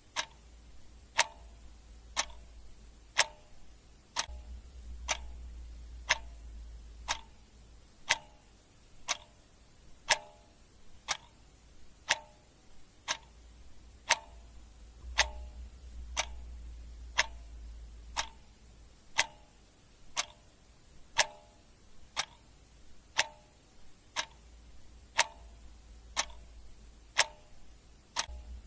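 Clock ticking steadily, about one tick a second, each tick a sharp click with a short ring.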